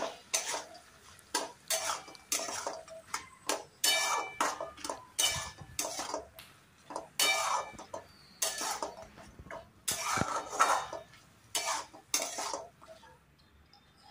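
Metal spatula scraping and clanking against a metal kadai while stirring fried soya chunks in sauce, in quick irregular strokes about one to two a second that stop near the end.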